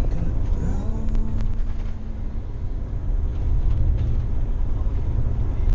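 Steady low rumble of a coach bus on the move, heard from inside the passenger cabin, with a few faint ticks.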